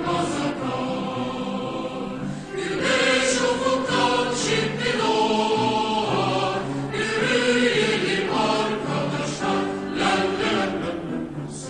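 Music: a choir singing, in phrases that swell and ease.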